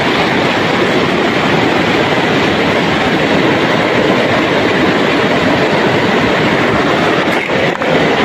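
Steady rush of a stony river, water flowing over rocks, with two short dips near the end.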